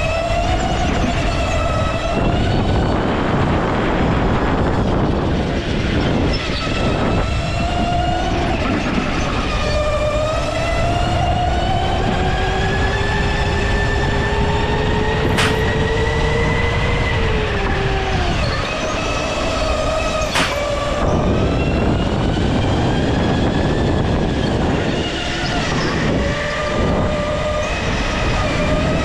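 Go-kart at racing speed, driver's-seat perspective: its motor note rises and falls repeatedly as it accelerates and brakes through the corners, over a dense low rumble. One long climb peaks about 17 seconds in, then drops sharply. Two brief sharp clicks come around the middle.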